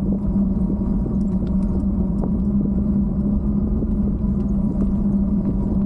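Steady low rumble of a bike riding along a paved street, with a constant low hum running under it.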